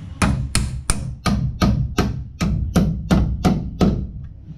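Claw hammer driving nails to fasten a blue plastic electrical box to a wooden stud: about eleven sharp, evenly spaced strikes, roughly three a second, stopping shortly before the end.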